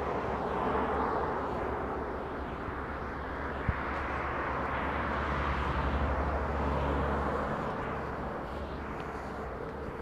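Outdoor traffic noise: a steady rush of cars passing on a nearby road, swelling and fading around the middle, with one short click about four seconds in.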